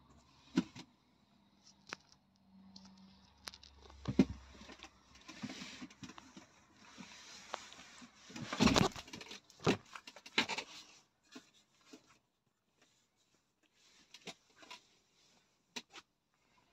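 Handling noise in a truck cab: scattered clicks, taps and scrapes against plastic interior trim, with a louder rustling scrape about nine seconds in.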